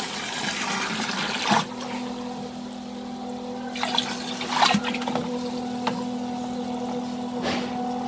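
Water from a 48 V brushless multistage solar submersible pump gushes out of its outlet hose and splashes into a plastic drum. A steady low hum joins the splashing about two seconds in, with a few short knocks along the way.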